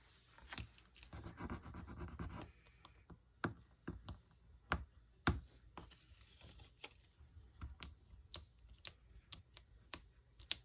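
Faint scratching and handling of paper, with a denser stretch of scratching about a second in, then scattered light clicks and taps.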